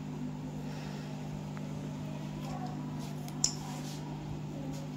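A steady low mechanical hum holding two constant tones, with one brief sharp click about three and a half seconds in.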